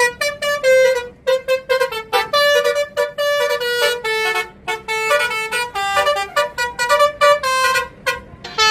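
Bus telolet 'basuri' musical air horn playing a quick tune of short, stepped notes, phrase after phrase with brief gaps between them.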